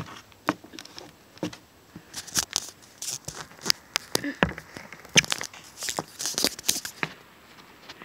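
Irregular rustling, crinkling and sharp little knocks from handling noise on a phone's microphone as the phone is moved about, busiest in the middle seconds.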